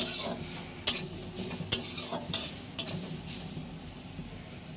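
Grated coconut being stirred in a hot karai (Indian wok), with a utensil scraping across the pan in about five strokes roughly a second apart and a light sizzle under them. The strokes grow fainter toward the end.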